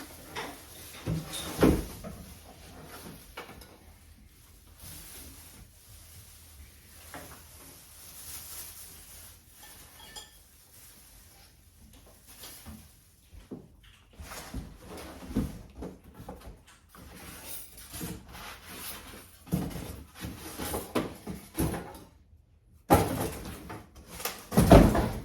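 Unpacking and handling noises: scattered knocks, bumps and rubbing as the microwave and its packing are moved about, with a few louder thumps, the loudest near the end.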